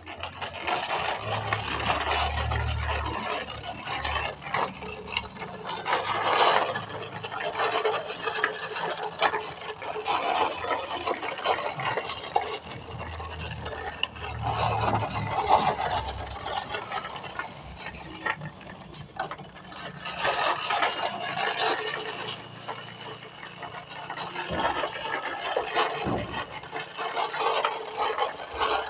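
Plastic toy dump truck being pulled across a rough concrete floor: its hard plastic wheels roll and scrape with a continuous gritty rasp and rattle that swells and fades in waves as it moves.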